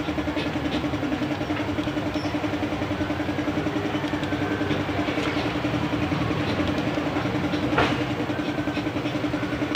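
A steady, rapidly pulsing engine drone, like an engine idling, runs throughout. Near the end a single sharp click sounds as a torque wrench is pulled on a crankshaft main bearing cap bolt.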